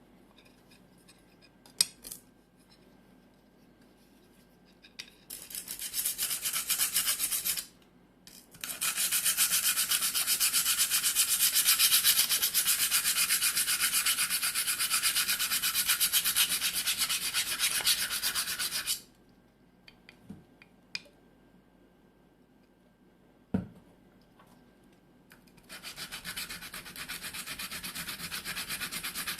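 Steel back of a single-bevel knife rubbed in rapid back-and-forth strokes on a curved Atoma diamond plate, a gritty scraping hiss in three spells: a short one about five seconds in, a long one of about ten seconds, and another starting near the end, with a few sharp clicks in the pauses. The plate is polishing pitting out of the knife's hollow-ground back (urasuki).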